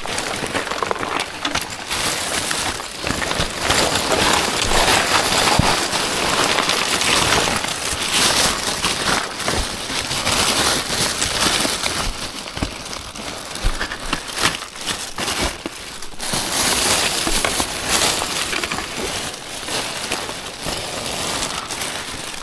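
Crumpled paper, cardboard and plastic bags rustling and crinkling without a break as gloved hands dig through a full bin of packaging waste.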